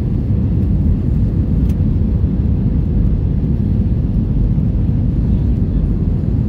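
Airbus A320 cabin noise: a steady, loud low rumble of the jet engines and airflow heard from a passenger seat, with a faint steady hum above it.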